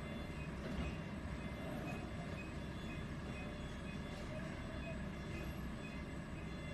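Steady low rumble of heavy trucks at a loading dock, with a faint high beep repeating through it.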